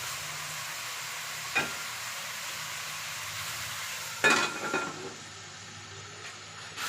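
Food sizzling in a pan with a steady hiss, and a metal utensil knocking against the pan: one knock about a second and a half in, then a ringing clatter of several strikes about four seconds in, after which the sizzle is quieter.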